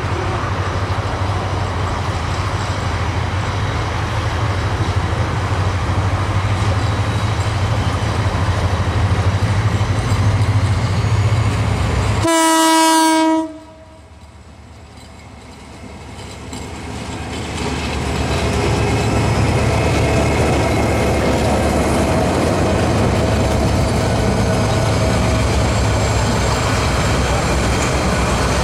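Metre-gauge express train hauled by a diesel locomotive, running with a steady rumble. About halfway through, the locomotive's horn sounds once for about a second. Right after the horn the sound drops away suddenly, then builds back up over a few seconds to the same steady rumble.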